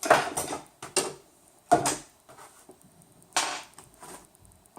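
Four sharp clatters and knocks of frame parts and screws being handled during assembly. The first, right at the start, is the loudest.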